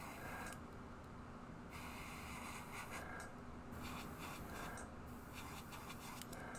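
Airbrush spraying paint in a string of short hissing bursts, about half a second to a second each, over a faint steady hum.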